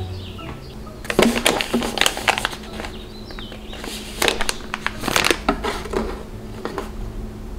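Crinkling and rustling of a soft plastic packet of cleansing cloths, with small clicks and knocks as it and a hand-sanitizer bottle are handled in a wooden drawer. It comes in two bursts, one starting about a second in and another about four seconds in.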